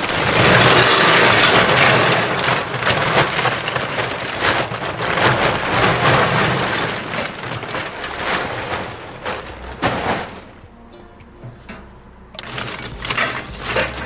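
Lump charcoal poured from a jute sack into a stainless-steel charcoal basket, a dense clatter of chunks rattling against the metal and each other for about ten seconds. After a short lull, a few more chunks clatter near the end.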